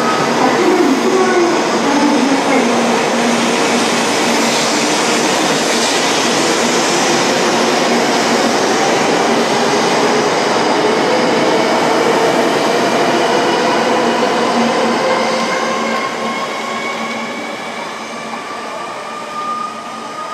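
A 700 series Shinkansen train pulling out and accelerating past on the platform: the cars roll by with a loud rushing sound while the electric drive's whine climbs steadily in pitch. The sound fades over the last few seconds as the train draws away.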